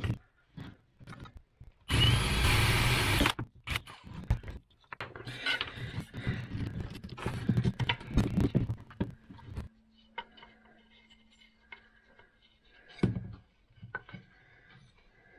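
Cordless drill with a wood bit boring into a small clamped piece of scrap wood for about a second and a half, about two seconds in. Then the wooden parts are handled and knocked together, with a sharp knock near the end.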